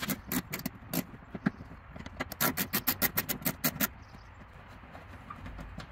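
Rapid, even clicking of a ratcheting driver backing out a T25 Torx bolt: one run at the start, a couple of single clicks, then a second run from about two to four seconds in.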